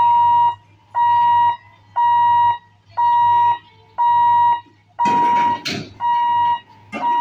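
Level-crossing warning hooter beeping as the boom barriers lower: a high, even electronic tone about half a second long, repeating about once a second. About five seconds in, a short burst of noise sounds over the beeps.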